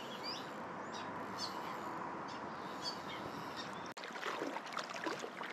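Steady rush of flowing river water with a few short bird chirps in the first three seconds. The sound changes abruptly about four seconds in, to nearer, busier water splashing.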